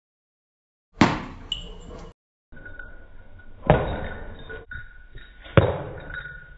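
Sharp knocks and thuds of a small ball striking a tile floor and a door as a kitten bats it around, after about a second of silence. Loud knocks come about a second in and then about three and a half and five and a half seconds in, with lighter taps between, over a faint steady high whine.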